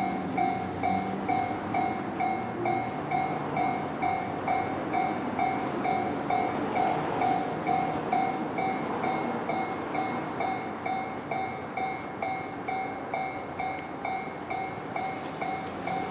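Japanese level-crossing warning bell ringing in a steady, rapid two-tone pulse, about two to three strikes a second, over the steady rumble of a train running through the crossing.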